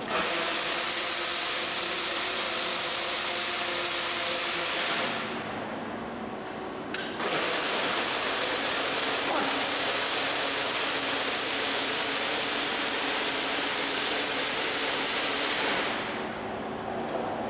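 Robotic MIG welding arcs on steel pallet-rack load beams, giving a steady hiss. It runs for about five seconds and fades out, then starts again abruptly about two seconds later and runs for about eight more seconds before tapering off near the end. A faint steady machine hum lies underneath.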